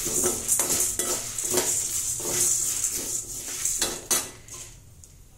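A metal spoon stirring and scraping whole black urad dal and dried red chillies as they dry-roast in a metal kadai: grains rustling and the spoon clinking against the pan in repeated strokes. The stirring stops about four and a half seconds in.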